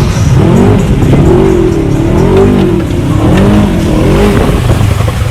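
Engine of an off-road mud vehicle revving hard, its pitch rising and falling again and again over a steady low rumble, as it is driven through mud.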